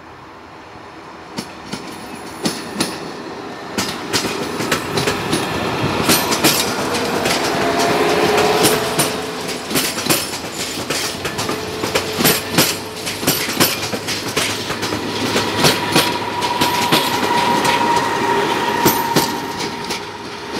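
Passenger train hauled by a ČD class 854 diesel railcar passing close by. Its wheels clatter over rail joints and points in a dense run of sharp clicks as the coaches go past, and a steady whine comes in near the end as the railcar passes.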